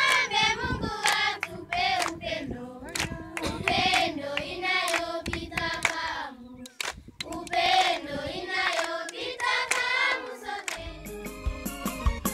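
A group of children and adults singing together with hand clapping, pausing briefly about halfway through before the singing picks up again. About a second before the end, the singing gives way to instrumental music.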